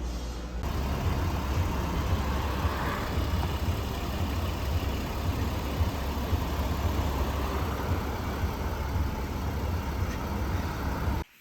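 Car driving: a steady low rumble of engine and road noise that cuts off suddenly near the end.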